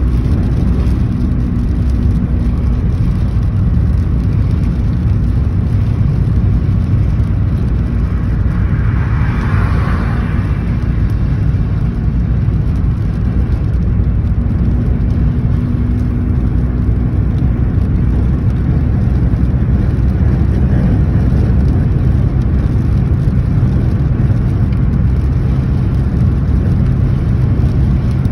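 Road and engine noise inside a moving car at highway speed: a steady low rumble of tyres and engine, with a brief hiss about nine seconds in.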